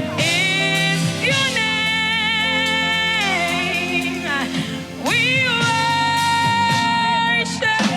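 Live gospel praise-and-worship music: a lead singer holds long notes with vibrato in two drawn-out phrases over sustained keyboard chords.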